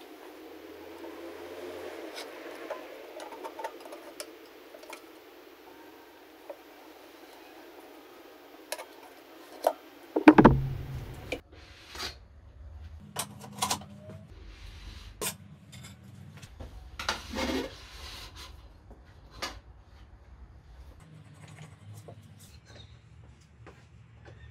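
Metal clinks, knocks and rubbing scrapes from working a motorcycle tire on its rim with tire levers on a tire changer. One knock about ten seconds in is the loudest, followed by scattered sharp clicks.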